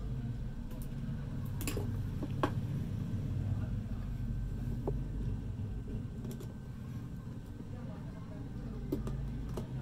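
Light clicks and taps from hand tools as wires are stripped and worked into the screw terminals of a changeover breaker, half a dozen spaced out, over a steady low background hum.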